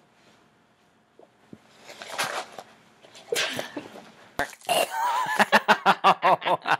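People laughing hard: a few breathy bursts at first, then from about halfway a fast, rhythmic run of ha-ha laughter, about five pulses a second.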